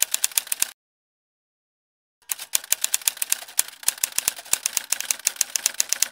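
Typewriter keys clacking in rapid strikes. They stop for about a second and a half soon after the start, then resume.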